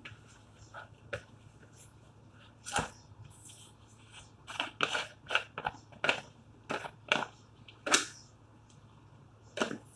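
Plastic flour jar's screw lid being worked by hand: sharp plastic clicks and knocks. There is a single knock about three seconds in, then a quick run of about ten over the next few seconds, and another just before the end.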